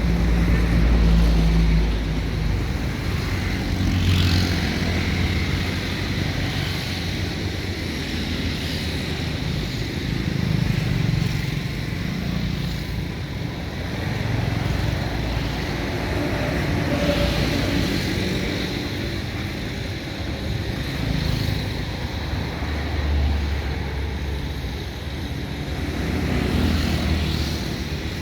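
Excavator's diesel engine running under working load, swelling and easing every few seconds as the machine works.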